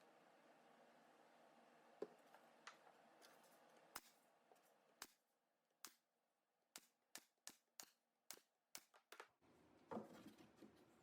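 Faint sharp clicks and taps over a low hiss, a few scattered at first, then about a dozen in quick succession in the second half, with a slightly louder knock near the end.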